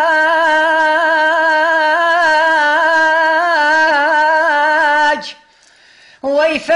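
Kurdish lament singing: a singer holds one long wavering note, lets it fall away about five seconds in, and after a pause of about a second slides back up into the note.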